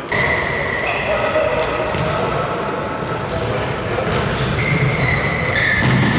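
Indoor football in a sports hall: players' shoes squeaking on the court floor in many short high squeals, the ball being kicked and bouncing with sharp knocks, and players' voices calling out.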